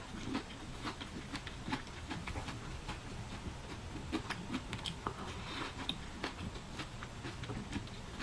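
Close-up sounds of a shatang mandarin being peeled and eaten: irregular soft clicks and crackles of rind and fruit, a few a second.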